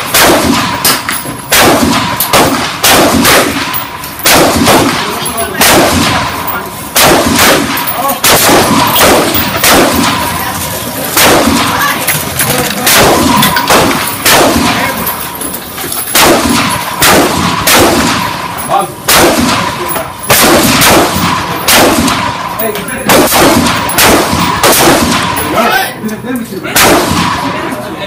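Gunshots on a covered shooting range: many sharp cracks at irregular spacing, about one or two a second, each with a short ringing echo under the wooden roof.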